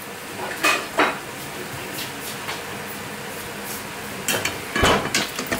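Kitchen utensils clinking and knocking against dishes and a pan: a few separate knocks, then a quick cluster about four to five seconds in. Under them runs the soft sizzle of chicken and broccoli frying in a non-stick pan.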